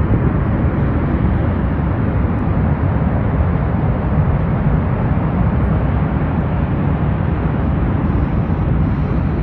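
Mount Bromo's active crater giving a steady, loud low rumble, with wind buffeting the microphone at the crater rim.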